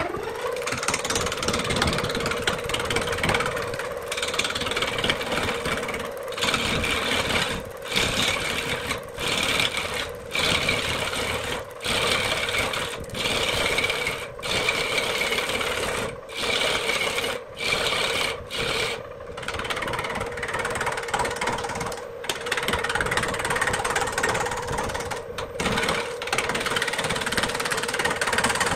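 Wood lathe spinning a large bark-covered wood blank while a hand gouge cuts into it: a steady motor hum under rough scraping cutting noise. The cutting is broken by many short gaps every second or two.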